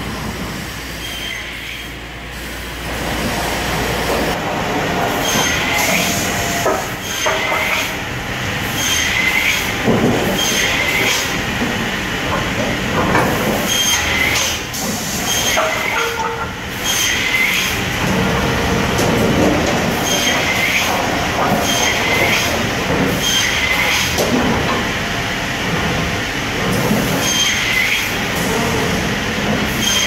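Cursal RV 2000 roller-feed optimizing cross-cut saw chopping boards to length, each cut a short high screech, repeating about every one and a half seconds over the steady run of the saw and feed rollers.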